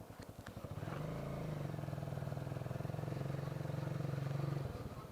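Motorcycle engine ticking over with an even pulsing beat, then held at higher steady revs for about four seconds before dropping back. There are two sharp clicks just after the start.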